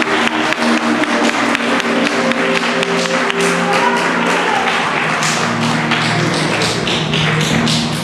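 Music with held chords, with many sharp percussive taps over it that grow more prominent from about three seconds in.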